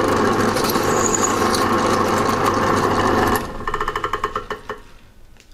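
Drill press motor running steadily with the bit raised clear of the work, then switched off a little after three seconds in and winding down with a fading, pulsing whir.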